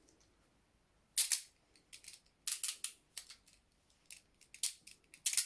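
Handcuffs being closed: a series of sharp metallic ratchet clicks in short clusters.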